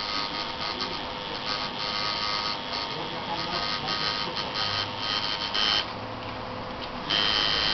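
Coil tattoo machine buzzing steadily while tattooing skin, getting louder in stretches and loudest near the end.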